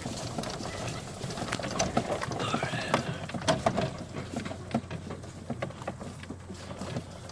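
Golf cart rolling over a rough woodland trail, its body rattling and knocking irregularly over a steady low hum from its drive.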